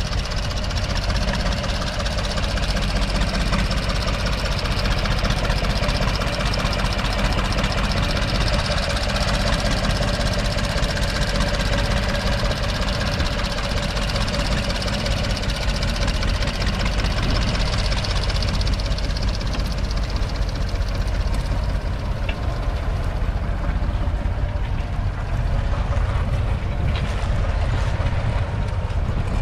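1962 Nuffield 3/42 tractor's 2.8-litre three-cylinder diesel engine running steadily under load while pulling a plough through stubble.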